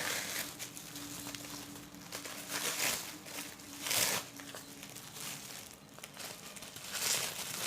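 Plastic earphone packaging crinkling and rustling as it is handled and opened, in short irregular rustles, the loudest about four seconds in and near the end.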